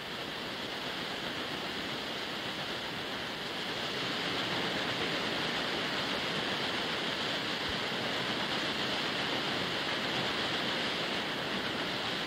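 A sternwheel paddlewheel churning and splashing river water: a steady rushing noise that grows a little louder about four seconds in.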